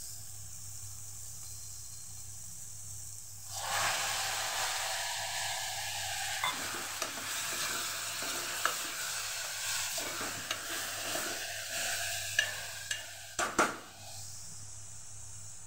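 Spiced sprouted moong beans sizzling in hot oil in an aluminium pressure cooker. From about four seconds in, a steel spoon stirs them, with rough scraping and scattered clicks of the spoon against the pot. A couple of sharp knocks come near the end, then the steady sizzle goes on alone.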